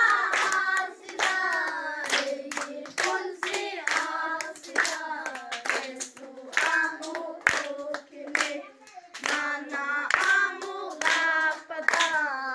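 Children singing a song together in a small room, with hand clapping in time to the song.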